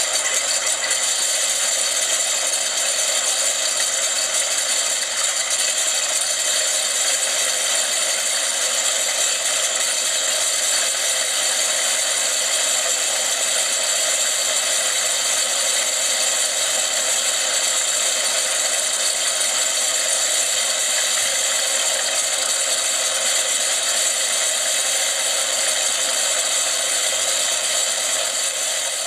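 Simulated aircraft engine sound from a motorized scale model's built-in electronic sound box, played through a small speaker in step with its spinning electric-driven propellers: a steady, rattling drone, thin with no bass, easing off slightly at the very end.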